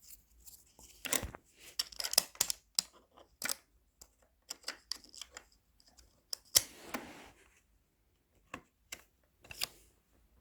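Scattered clicks, taps and short scrapes of DDR3 memory modules being handled and pushed into the memory slots of a 27-inch iMac, with the sharpest click about six and a half seconds in.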